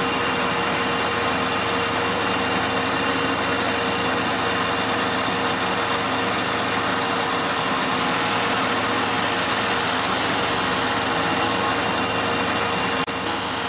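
Milling machine running, an end mill cutting along the edge of a metal block held in a vise: a steady machining noise with a constant whine, dropping a little in level near the end.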